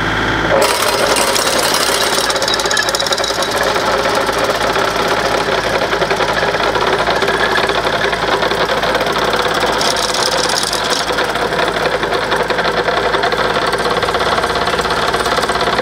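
An engine-driven farm machine running with a fast, even clatter that starts abruptly about half a second in.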